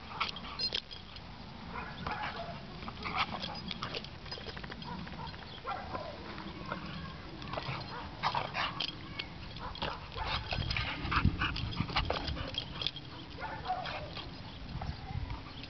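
A dog making excited breathing and small vocal noises as it jumps at a swinging tetherball, with many sharp clicks and knocks. There are a few louder thumps about two thirds of the way through.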